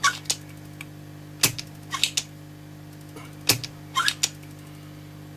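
Spring-loaded solder sucker (desoldering pump) snapping as it fires three times, about two seconds apart, pulling molten solder out of plated-through PCB holes. Each snap is followed about half a second later by shorter clicks and a scrape from handling the pump. A steady low hum runs underneath.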